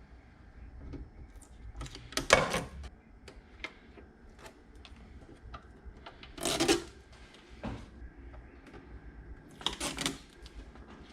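Backing film being peeled off double-sided adhesive tape in three short rips, with light clicks and taps of handling in between.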